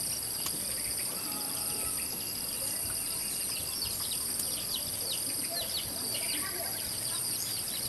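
Outdoor ambience of insects trilling steadily at a high pitch, with many short, falling bird chirps throughout.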